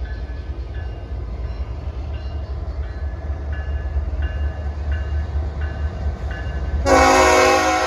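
Florida East Coast freight train's diesel locomotives approaching with a steady low rumble, while a faint bell-like ringing repeats evenly. About seven seconds in, the lead locomotive's horn sounds a loud blast that is still going at the end.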